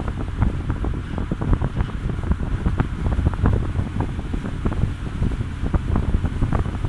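Strong wind buffeting the microphone at sea, a heavy low rumble broken by rapid crackling gusts, over the rush of a rough sea as a storm begins.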